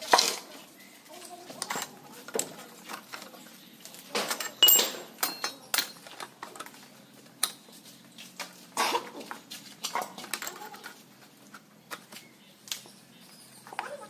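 Steel rebar being bent by hand into a stirrup ring with a pipe lever against steel pegs: irregular metal clanks, clinks and knocks, with a sharp ringing clink about four and a half seconds in.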